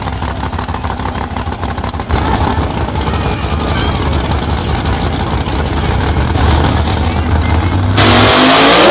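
Drag-race pickup truck's engine running at a choppy, lumpy idle as the truck rolls slowly. Near the end a much louder burst of racing-engine noise cuts in, its pitch falling.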